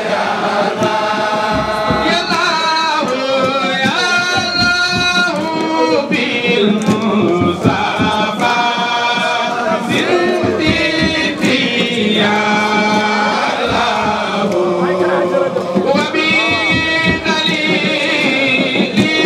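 A large crowd singing a religious chant together, the melody moving up and down in phrases.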